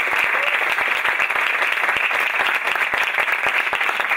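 Audience applauding steadily: many overlapping hand claps.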